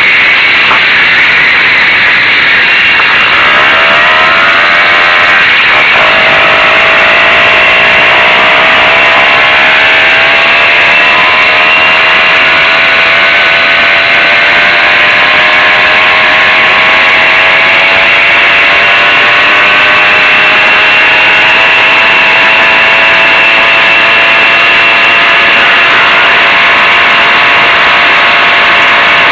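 Zündapp M50 Bergsteiger moped's small two-stroke single-cylinder engine running under way. Its pitch climbs in the first few seconds, drops briefly about six seconds in, then rises slowly and holds steady.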